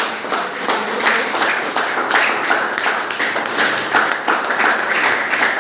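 A group of students applauding, many hands clapping steadily and loudly.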